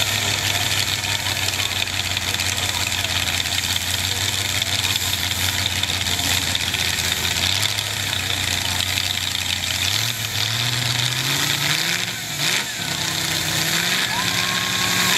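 Ford 400 V8 engine of a hot saw (racing chainsaw) running at a loud, steady idle, then revving up in steps about ten seconds in.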